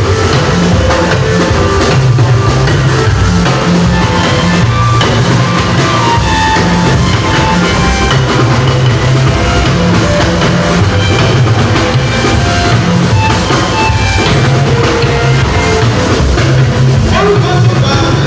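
Live gospel praise music: an electronic keyboard playing over a drum beat with strong bass notes, loud and continuous.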